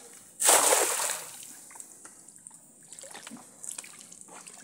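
A weighted cast net landing on the river with a loud spraying splash about half a second in, dying away over about a second. Faint drips and trickles of water follow.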